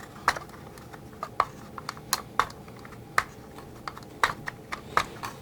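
Hard plastic parts of a vintage G.I. Joe Cobra Rattler toy clicking and tapping as they are worked back and forth by hand, a dozen or so irregular sharp clicks.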